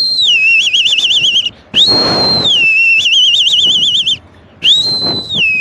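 A man whistling an imitation of a kite's call three times: each call starts high, drops in pitch, then breaks into a rapid quavering trill.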